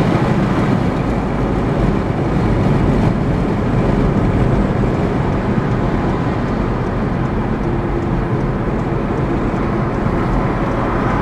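Steady road noise of a car cruising at highway speed, heard from inside the cabin: tyre and engine rumble with wind.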